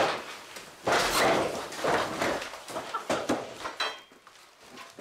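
Rustling and knocking as long pipes and white plastic sheeting are handled and carried, in irregular bursts that die down near the end.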